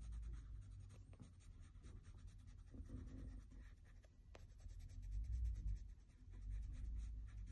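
Faint scratching and rubbing of a red-violet colored pencil on sketchbook paper as a flower is shaded and blended.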